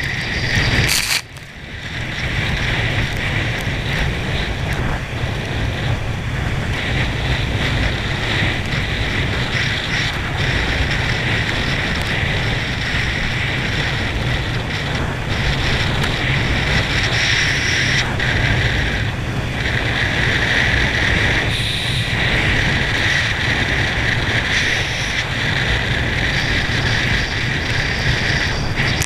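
Steady rush of wind buffeting the microphone and water spray hissing off a water ski as it is towed at racing speed over a boat's wake, with a brief dip about a second in.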